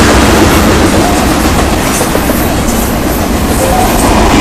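Loaded freight train of tank cars and boxcars passing close by: a steady, loud rumble of steel wheels on rail.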